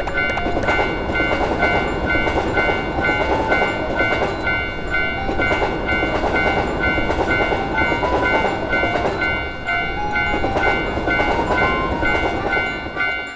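A train passing with a steady rumbling rattle, over a railroad crossing bell ringing on at an even beat. A simple stepped tune also plays underneath.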